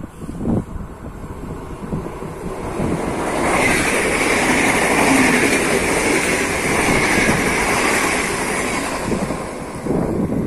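A train running past on the tracks: its running and rail noise swells about three seconds in, holds loud, and eases off near the end. There are a few short thuds just after the start and again near the end.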